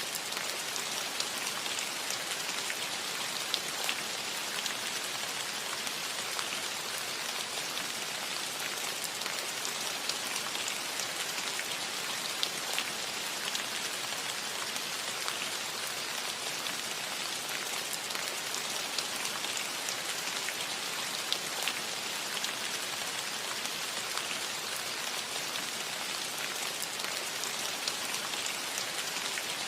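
Steady rain on a metal roof: an even hiss of rainfall dotted with many small, sharp drop ticks.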